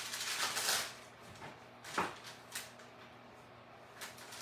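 Tracing paper rustling for under a second, then a light knock about two seconds in and a fainter one shortly after, as a rolling pin and a clothes iron are handled on a craft mat.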